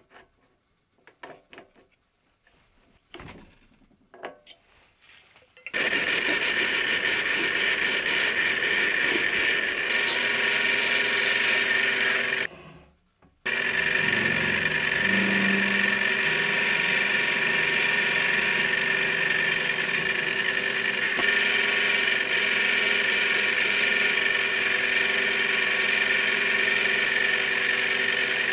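A few light clicks as a brass blank is set in the collet chuck, then a mini lathe running with a steady whine from its drive while the brass is centre-drilled and turned. The sound cuts out for about a second near the middle, then picks up again.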